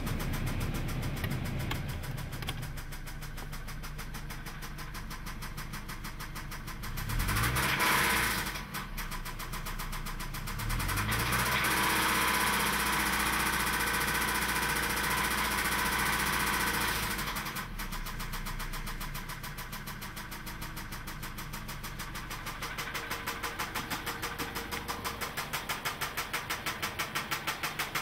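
2003 Mazda 6's 2.3 L four-cylinder engine running with a knocking sound: it idles, is revved briefly about a quarter of the way in, is then held at higher revs for several seconds, and drops back to idle. Near the end an even pulsing grows louder.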